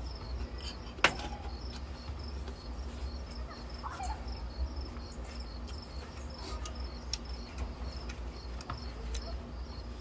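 Crickets chirping in a steady, even rhythm over a low rumble, with one sharp click about a second in.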